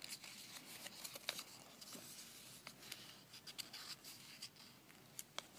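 Faint rustling and crackling of a sheet of origami paper being folded and pressed by hand, in short scattered clicks.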